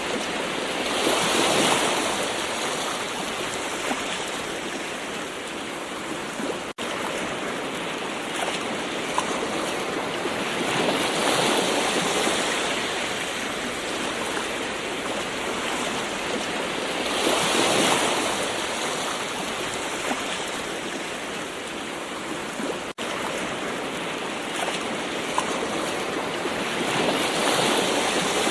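Gentle ocean waves washing in: four slow swells of surf rise and fade over a steady hiss of moving water. There are two split-second dropouts in the sound.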